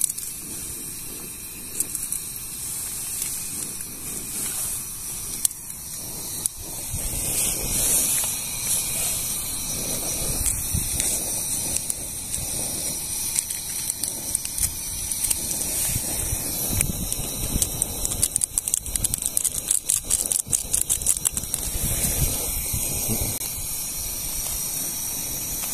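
Portable butane gas stove burning with a steady hiss, with irregular low rumbling and scattered small clicks.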